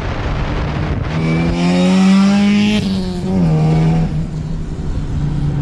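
Car engine accelerating, its pitch climbing for about two seconds, then dropping about halfway through and running on steadily at a lower pitch.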